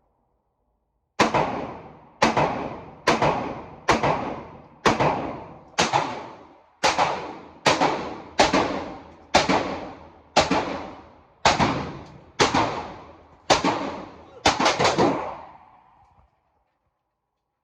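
A gun fired in a steady string of about sixteen shots, roughly one a second, each followed by a ringing echo that dies away; the last two shots come in quick succession.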